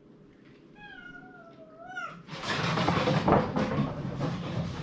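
A cat meows once, a wavering call that rises at its end. Then comes a loud, harsh hiss lasting about two and a half seconds: a wary cat warning another cat away.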